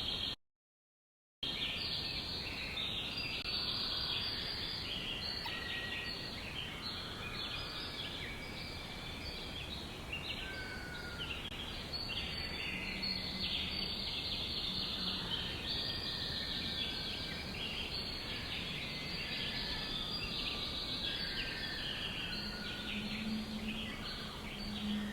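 Many birds chirping together in a dense, continuous chorus of short, high calls over a steady background hiss. Shortly after the start the sound drops out to complete silence for about a second.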